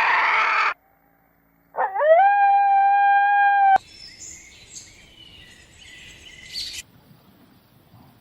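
A brief harsh animal call that cuts off, then a long animal howl: it rises quickly and holds one steady pitch for about two seconds before stopping abruptly. Faint high bird chirps follow.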